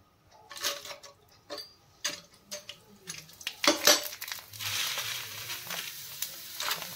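Stainless steel perforated skimmer clinking and knocking against a non-stick frying pan as dried poha kurkure sticks go into the hot oil, with one loudest clink a little before halfway. From about halfway the oil sizzles steadily as the pieces deep-fry.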